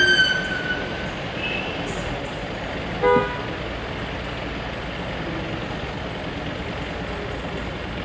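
Steady bus engine and road noise heard inside the cabin. A horn note falling in pitch dies away in the first second, and a short horn toot sounds about three seconds in.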